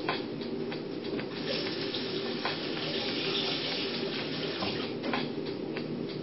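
Water running from a bathroom tap into the sink, swelling about a second and a half in, as lather is rinsed off the face after the shave.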